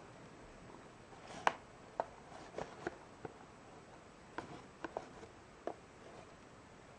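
Small cardboard toy box handled and turned over in the hands: a scatter of light taps and clicks as fingers and the box edges knock and shift, about a dozen of them, the sharpest about a second and a half in.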